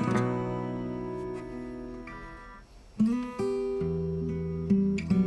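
Acoustic guitar music. A chord rings and fades away for about two and a half seconds, then a new chord is struck about three seconds in, followed by further changing chords.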